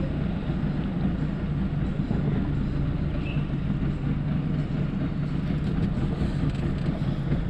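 Small boat's motor running steadily as the boat cruises slowly on calm water, a constant low hum.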